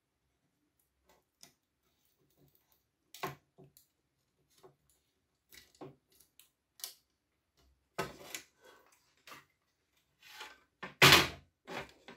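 Metal tweezers tapping and scraping on the plastic housing of a toy sewing machine, in short separate clicks, then the housing being handled, with denser knocks and rustles and the loudest scrape about eleven seconds in.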